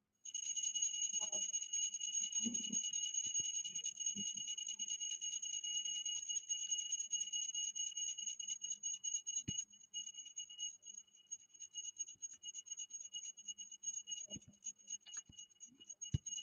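High-pitched electronic buzzer-like tone with a second, higher tone above it, fluttering rapidly and becoming choppier about halfway through, with a few soft knocks underneath.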